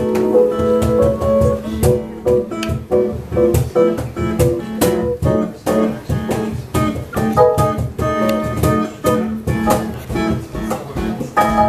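Instrumental music: plucked guitar notes in a quick, even run over a steady held low note.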